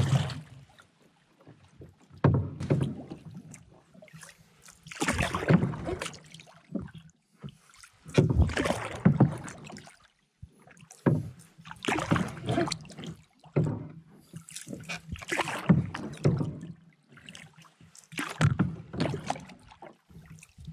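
Canoe paddle strokes on calm water, a swirl and splash of water with each stroke, repeating roughly every three seconds.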